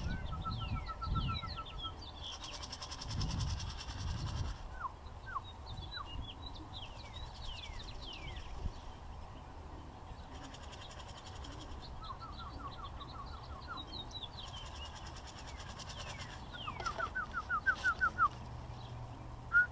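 Small wild songbirds chirping: series of short, quick repeated notes and quick falling whistles, coming and going, with a louder run of rising notes near the end.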